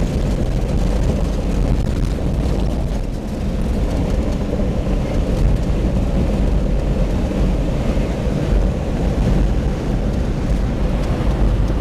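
Steady road noise inside a vehicle's cabin while driving on an unpaved dirt track: engine and tyres rumbling low.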